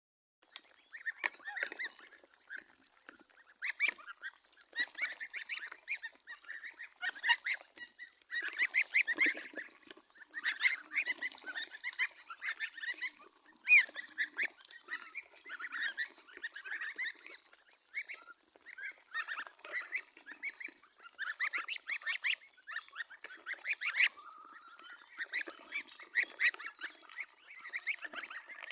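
Flock of geese and ducks calling, many overlapping honks with only brief lulls.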